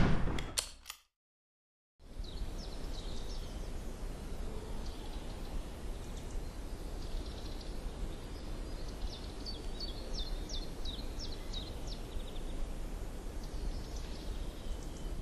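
The echo of a revolver shot fading out in the first second. After a moment of silence comes outdoor ambience: a steady low rumble with small birds chirping, the chirps thickest a few seconds before the end.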